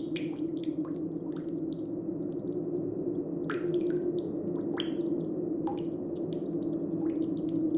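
Water dripping: irregular plinking drops, some with a quick falling pitch, over a steady low background noise.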